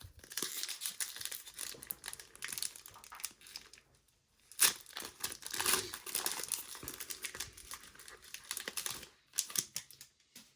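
Plastic wrappers of trading-card packs crinkling and tearing as they are handled and opened, in an irregular run of crackles with a sharper rip about four and a half seconds in.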